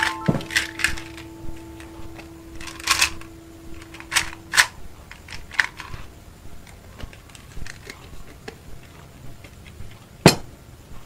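Spoon and crockery clinking and tapping on a plate at a small table, a run of light irregular clicks, with one sharper, louder click near the end.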